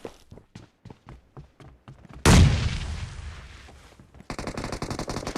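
Video-game shooter sound effects. A run of quick shots comes first. About two seconds in there is a loud explosion whose rumble fades slowly. From about four seconds in, automatic-weapon fire goes in a rapid, even rhythm.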